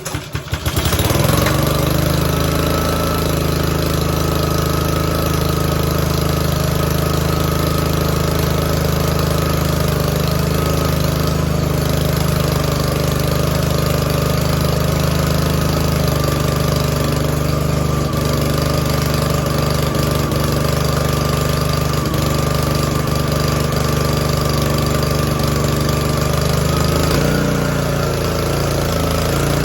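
Honda GCV160 single-cylinder engine on a pressure washer pull-started cold, catching within the first second and settling into a steady run, with a slight shift in tone near the end. It runs after its clogged carburetor jets were cleaned.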